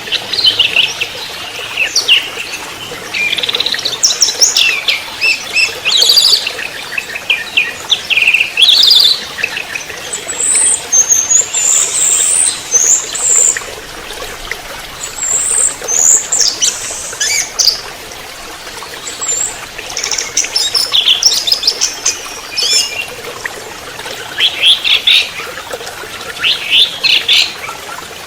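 Orange-headed thrush singing a rapid, run-on chattering 'trotol' song of short warbling phrases one after another, over a steady hiss.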